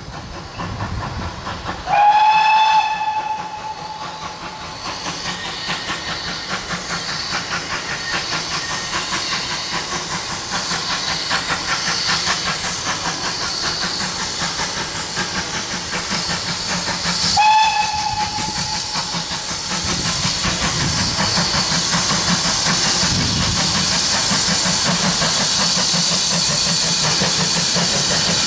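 Ex-GWR 57xx 0-6-0 pannier tank steam locomotive working a train, its exhaust beats growing steadily louder as it approaches. It sounds its whistle twice: a blast of about a second near the start and a shorter one about seventeen seconds in.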